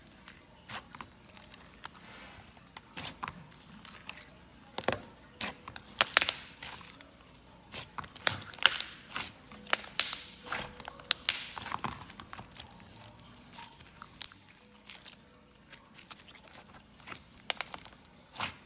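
Homemade fidget toys being handled: irregular clicks, taps and crinkling, busiest in the middle stretch.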